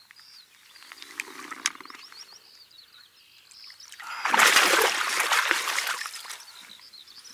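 A hooked pike thrashing and splashing at the surface in a loud burst about four seconds in lasting a couple of seconds, with small birds singing in the background.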